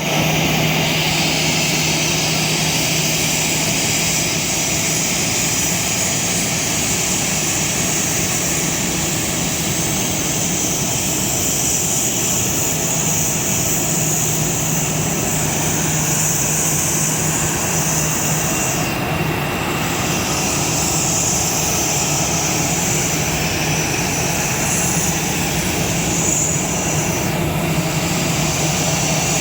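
Airbus A320-216's CFM56 turbofan engines running at low taxi power as the jet rolls into its stand: a steady jet whine and rush over a low hum, with the high hiss dipping briefly a couple of times in the second half.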